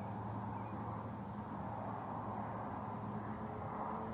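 Steady wind noise rushing over the microphone, with a faint steady low hum underneath.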